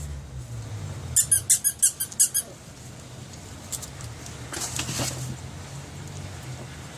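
A rubber squeaky dog toy squeezed in a quick run of about seven short, high squeaks, as a puppy chews it.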